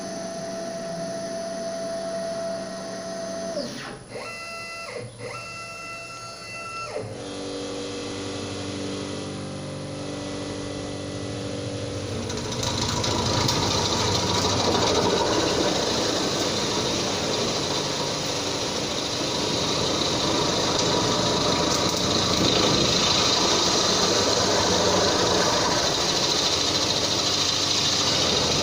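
CNC router running a drilling program. The machine's motors whine in steady tones that shift pitch a few times over the first seven seconds. From about twelve seconds in, a louder, rougher noise takes over as the step drill bit bores holes in the thin galvanised steel sheet.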